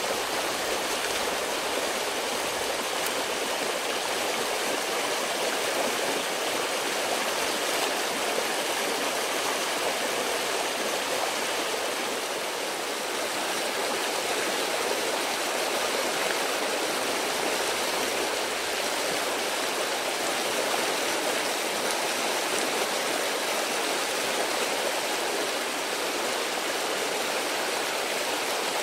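A steady, even rushing hiss like running water, with no distinct calls or knocks in it.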